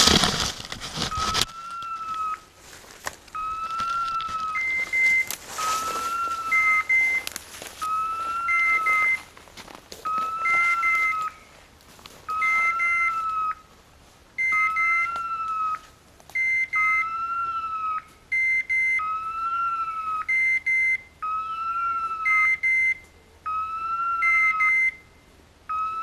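Electronic beeper collar on a pointing dog sounding a repeating signal: a short rise-and-fall tone followed by two short higher beeps, about every two seconds, the continuous pattern such collars give when the dog is on point. A loud rustling burst comes in the first second or so.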